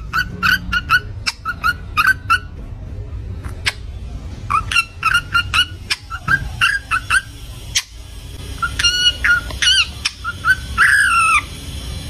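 Indian ringneck parakeet calling in bursts of rapid, short, high-pitched chirps, with a longer falling call near the end. A steady low hum runs underneath.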